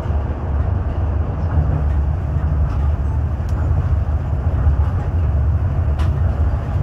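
Tokyo Monorail train running along its beam guideway, heard from inside the front car: a steady low rumble of its rubber tyres and motors, with a faint click about six seconds in.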